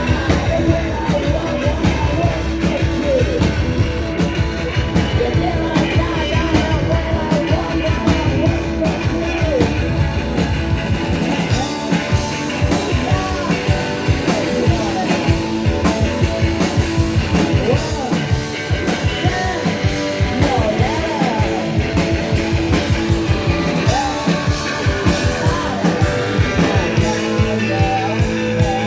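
Live garage-punk rock band playing: electric guitar, bass and a steady drum beat, with a singer's voice over it. About eleven seconds in the deep bass drops away, leaving the drum hits more exposed.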